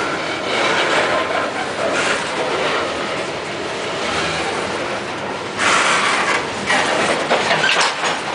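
Coal train's freight cars rolling past close by, steel wheels clattering over the rail joints in a steady run of clacks. The clatter grows louder about two-thirds of the way through, with a few sharper knocks near the end.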